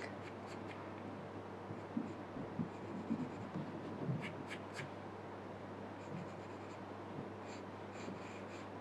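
Pencil scratching lightly on paper in short, irregular sketching strokes, with a few faint ticks about halfway through.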